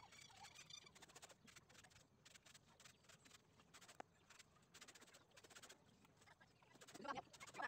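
Near silence, with a faint high bird chirp at the start and a faint chicken clucking near the end.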